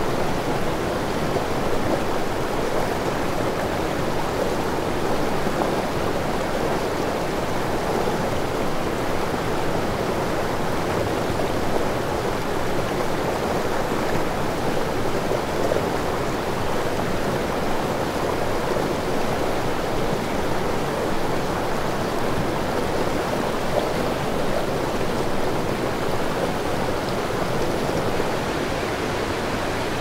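Shallow mountain creek rushing over rocks in small rapids: a steady, even wash of water.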